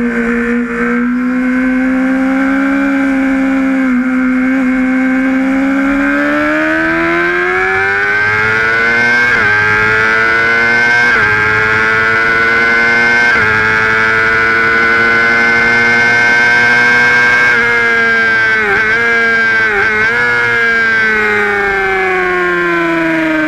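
Onboard sound of a Honda sportbike's engine at high revs with wind rush: the engine pitch climbs steadily for a few seconds, holds high with a few brief dips, then falls away near the end as the bike slows.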